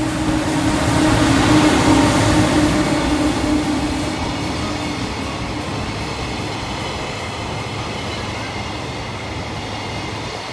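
Electric freight locomotive passing close by, its steady hum loudest in the first few seconds. A long train of container wagons follows, its wheels rolling past on the rails.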